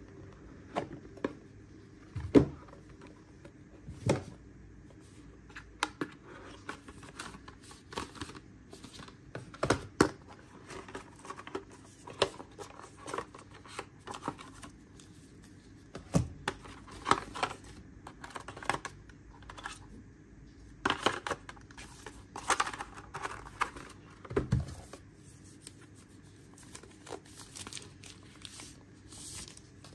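Unboxing handling noise from a smartphone's cardboard retail box and the phone's protective wrap: irregular clicks, taps and rustles, with a few louder knocks spread through.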